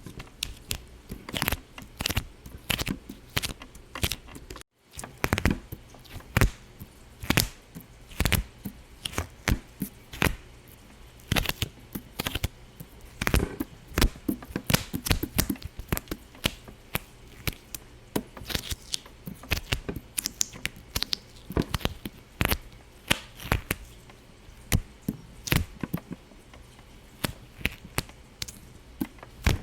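Irregular sharp pops and crackles, several a second and uneven in loudness, with a brief break about five seconds in.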